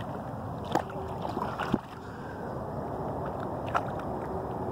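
Steady noise of water and wind at a pond's edge as a hooked bass is held in the shallows, broken by three sharp clicks about a second, two seconds and nearly four seconds in.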